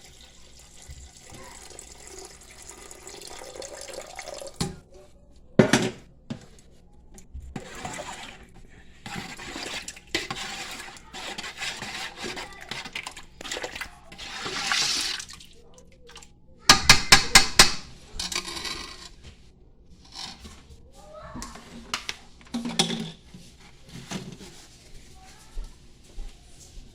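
Water running from a kitchen tap into a cooking pot, then kitchen handling noise with scattered knocks and, a little over halfway through, a quick run of about six sharp knocks, the loudest sound.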